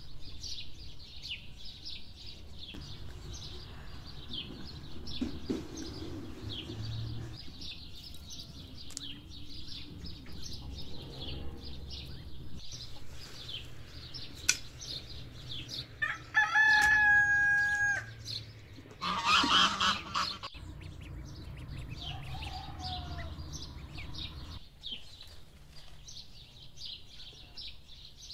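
Small birds chirping continuously, with a rooster crowing about halfway through, followed a moment later by a second, harsher and louder call.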